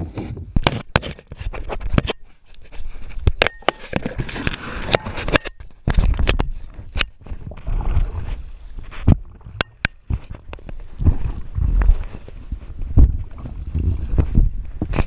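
Irregular knocks and scrapes of a camera against a plastic sit-on-top kayak, with water sloshing and a low rumble of handling noise on the microphone.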